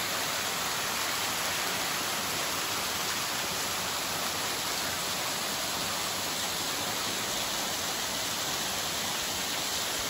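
Small waterfall splashing onto rocks into a shallow pool: a steady rush of falling water.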